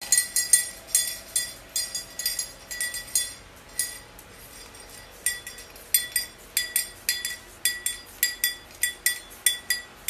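A small metal object held in a white cockatoo's beak clinking again and again, sharp metallic clinks that each ring briefly, about two a second with a pause of about a second midway.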